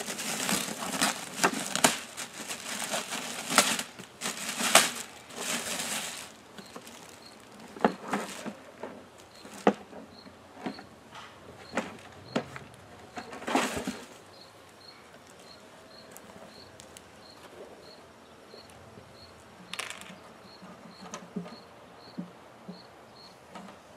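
Black plastic bag rustling and crinkling as it is rummaged through, dense for the first six seconds or so, then in scattered rustles and taps. Honey bees buzz faintly around the hive.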